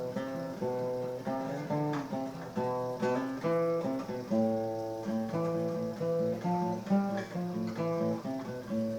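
Music: acoustic guitar playing picked and strummed chords at a steady pace.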